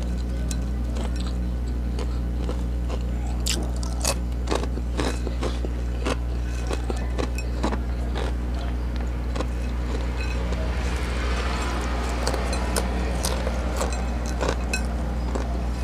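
Close-miked crunching and chewing of small crisp snack crumbs, heard as many short sharp crackles, with fingertips scraping and tapping crumbs off a ceramic plate. A steady low hum runs underneath.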